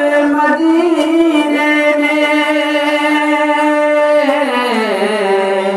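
A solo voice sings an Urdu naat, holding one long drawn-out note on the word 'Madine'. The note slides down in pitch about four seconds in.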